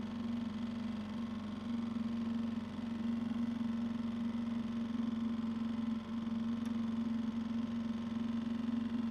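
Steady low hum of a motor running at a constant speed, one even tone with no change in pitch.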